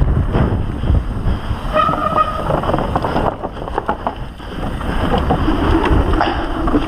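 Wind buffeting the microphone over the rumble and clatter of mountain bike tyres rolling fast across a wooden plank boardwalk, with a brief squeal about two seconds in.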